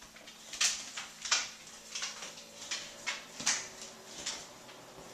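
A bulldog's claws clicking on a hardwood floor as it walks with a limp: a string of sharp, uneven taps, a few of them louder.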